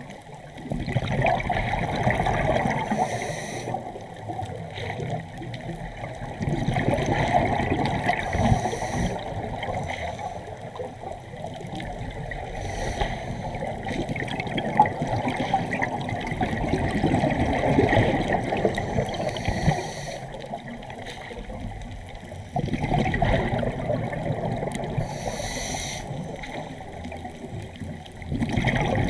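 Moving water, its noise swelling and easing every few seconds.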